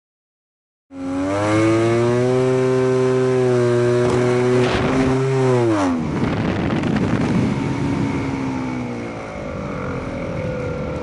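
Radio-controlled model aircraft's motor and propeller running at a steady high pitch, starting about a second in. About six seconds in the pitch falls sharply as it is throttled back, and it runs lower and rougher after that.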